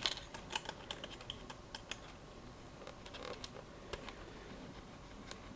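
Scattered light clicks and taps of small plastic joystick parts and wire connectors being handled and fitted, more of them in the first couple of seconds.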